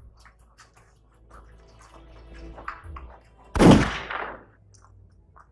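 A single loud bang about three and a half seconds in, sharp at the start and dying away over about a second, after some quieter scuffling.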